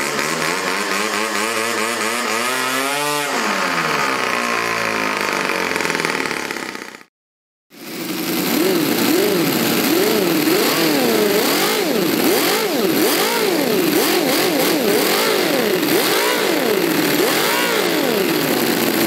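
A small homemade four-stroke rotary-valve model engine running on glow fuel, its speed sweeping sharply about three seconds in. After a brief cut, a homemade rotary-valve model V8 engine runs, its speed rising and falling over and over, about once a second.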